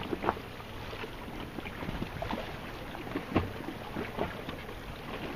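Sea water lapping and splashing in irregular slaps close to the microphone, over a steady low rumble of wind on the microphone.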